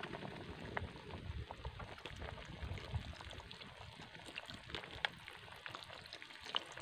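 A wok of coconut-milk stew simmering over a wood fire while soy sauce is poured into it in a thin stream, with scattered faint crackles.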